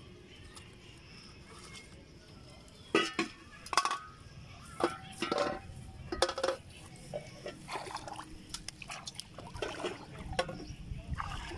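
Plastic bottle traps knocking and clinking against an aluminium basin as they are handled, a series of sharp irregular knocks. Water splashing near the end.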